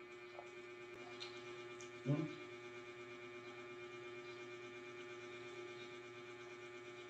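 Steady low electrical hum, with one short, louder sound about two seconds in.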